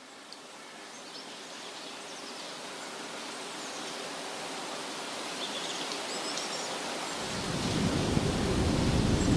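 Spooky ambient soundscape: a steady outdoor hiss that swells gradually, with a few faint bird chirps. A low thunder rumble starts up about seven seconds in and builds.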